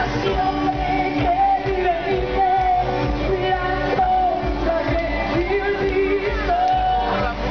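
Live pop song played through a PA system: a woman sings the melody in long held notes over a steady drum beat.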